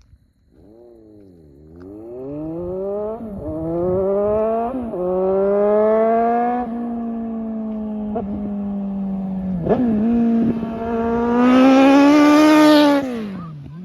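Suzuki Bandit 1250 inline-four motorcycle engine at full throttle, its pitch climbing and dropping back sharply with each upshift, about three times. It grows louder, holds steady, climbs once more and then falls away near the end as the throttle closes.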